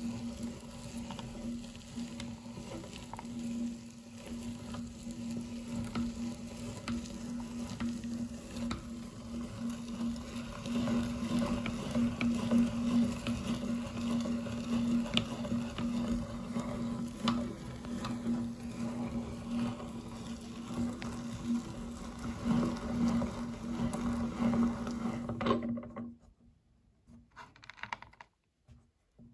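Metal meat grinder crushing a crunchy candy bar: irregular crackling and crunching over a steady low hum. It stops about 26 seconds in.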